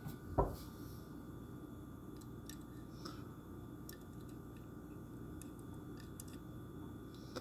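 Faint handling of a small die-cast toy car: a soft bump about half a second in, then a few light clicks over a steady low room hum.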